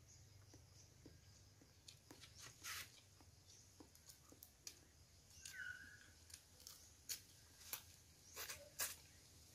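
Faint, irregular clicks and smacks of eating by hand: fingers picking at cooked blue crab and rice, then chewing, loudest near the end.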